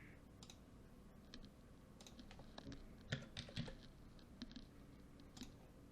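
Faint, irregular clicks and taps of computer keys, a dozen or so spread unevenly, over quiet room tone.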